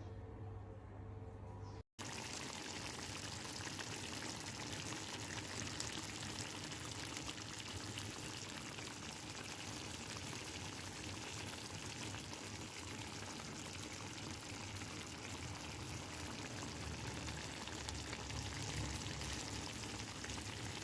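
Steady watery hiss of food cooking in a pot or pan. It starts abruptly about two seconds in, after a short low hum, and carries on evenly.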